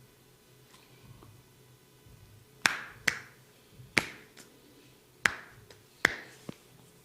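A barber's hands making a series of sharp snaps during a head and ear massage: five loud ones, unevenly spaced, with a few fainter clicks between, starting a little over two seconds in.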